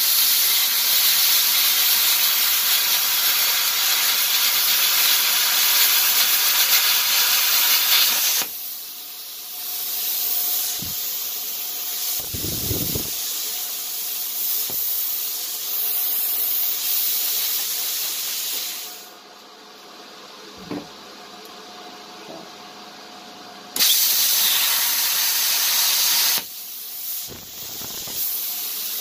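Plasma cutter arc cutting steel plate with a loud, rough hiss for about eight seconds, then the arc stops and a quieter steady hiss carries on. A second loud stretch of hiss comes about 24 seconds in and lasts a couple of seconds.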